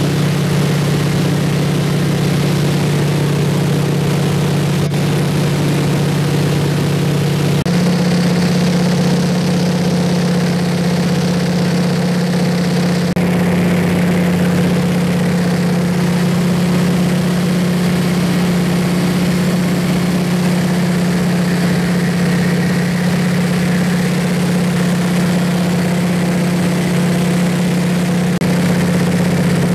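De Havilland Beaver floatplane's engine and propeller droning steadily in flight, heard from inside the cabin.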